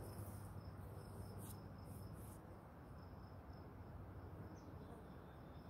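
Faint insects chirping outdoors: a high-pitched chirp repeated in quick, even pulses, over a low steady hum.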